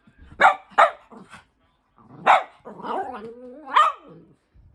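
Cavalier King Charles Spaniel barking: two quick barks, a single bark, then a longer wavering vocal sound about a second long that ends in another bark.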